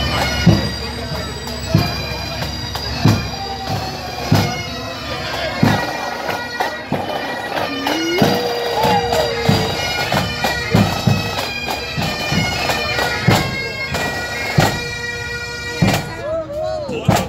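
Pipe band playing: bagpipes sounding a melody over their steady drones, with drums beating along.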